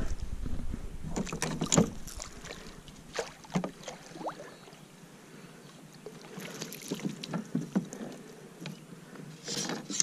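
A hooked Australian bass splashing at the surface beside a kayak, then scattered knocks and rattles as it is scooped into a landing net and lifted aboard.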